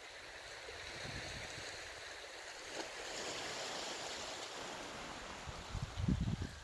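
Sea waves washing against a rocky shore: a rushing hiss that swells and then eases off. A few low thumps come near the end.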